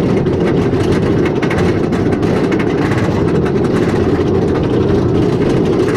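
Roller coaster train being hauled up a chain lift hill: the steady clattering drone of the lift chain, with fast, even clicking.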